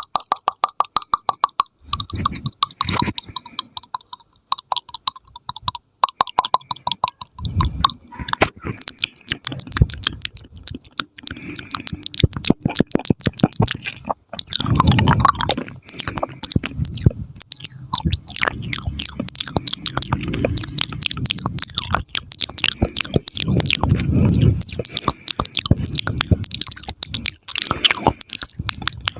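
Close-miked ASMR mouth sounds: rapid wet clicks, pops and lip smacks, with a fast, even run of pops in the first couple of seconds and wetter, chewing-like smacking later on.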